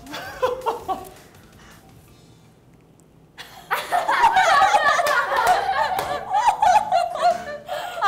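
A brief hush, then a group of young women bursting into laughter about three and a half seconds in and laughing on to the end.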